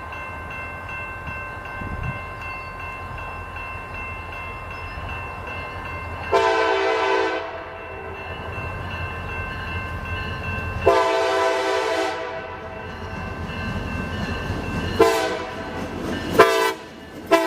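Diesel locomotive horn sounding two long blasts, then short ones, and a further long blast starting near the end, the pattern of the long-long-short-long grade-crossing signal. Under the horn runs the steady rumble of the light-running EMD SD40-3 locomotive.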